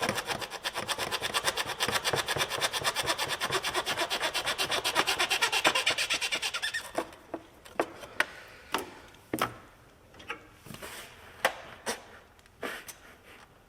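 Stuck rubber intake air hose being worked back and forth on its fitting: fast, even rubbing strokes for about seven seconds, then scattered clicks and knocks.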